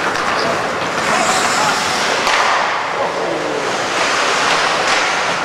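Steady hiss of ice hockey skates carving and gliding on rink ice during play, with a faint murmur of voices under it.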